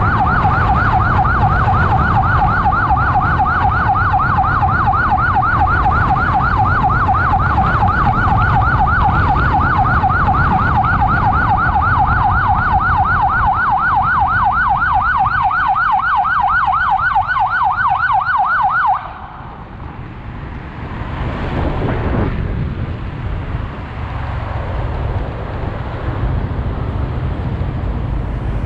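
Emergency vehicle siren sounding a fast yelp, rising and falling several times a second, over engine and traffic noise. It cuts off suddenly about nineteen seconds in, leaving only the engine and road traffic.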